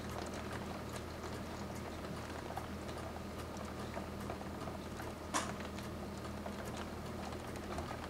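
Rain during a night thunderstorm: scattered drops pattering and ticking irregularly over a steady low hum, with one sharper tick about five seconds in.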